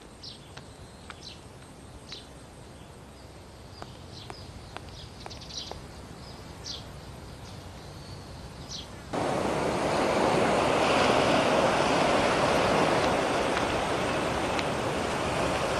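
Quiet outdoor ambience with scattered short high chirps. About nine seconds in it changes abruptly to a much louder, steady rushing noise like wind or surf.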